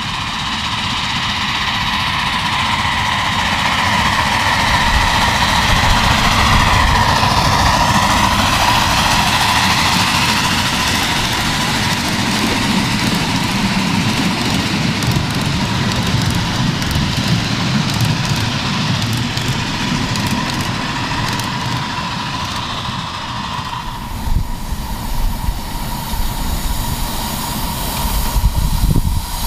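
7½-inch gauge miniature railway train running along the track, growing louder to a peak about six seconds in and then slowly easing, with a steady high ringing tone throughout. The sound changes abruptly about 24 seconds in, becoming rumblier with scattered clicks.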